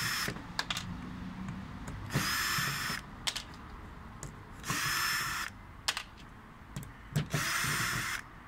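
Cordless drill-driver running in short bursts of just under a second, about every two and a half seconds, unscrewing the factory-fitted screws from a plastic pond tank connector's flange. Light clicks and knocks come between the runs.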